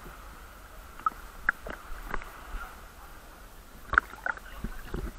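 Steady wash of sea surf, with a few short sharp ticks now and then.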